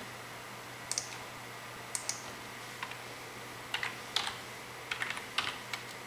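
Small wrench working a glow plug in a diesel cylinder head: a scattering of light, irregular metallic clicks and taps as the tool is fitted and turned.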